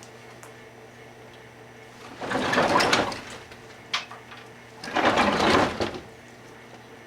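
Microwave oven running with a steady hum while a baseball heats inside. Twice, about two seconds in and again about five seconds in, a loud burst of crackling lasting about a second comes from the ball, with a sharp click between them.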